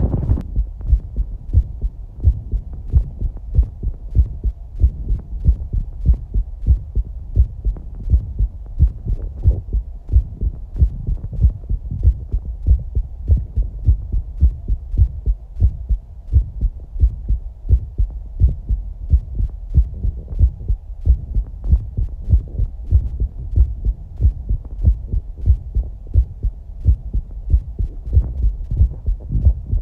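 Human heartbeat heard close up: a steady, even rhythm of low thumps.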